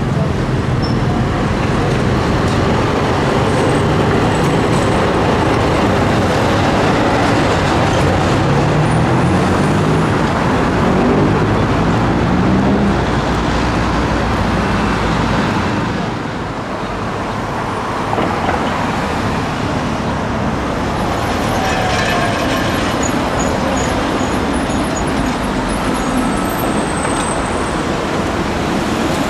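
Sarajevo tram running along its line, its motor hum rising in steps as it picks up speed, over the steady noise of the wheels on the rails.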